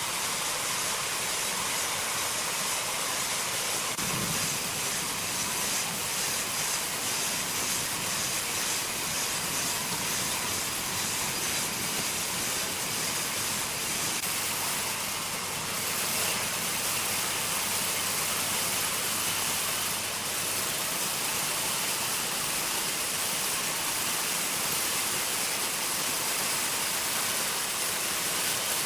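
Sawmill machinery running with a steady hissing noise; a low hum joins in about halfway through for several seconds.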